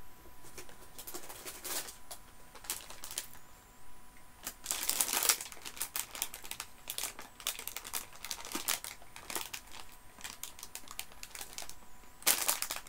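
Sweet packaging crinkling and rustling as packets are handled, in irregular bursts of crackle, loudest about five seconds in and again near the end.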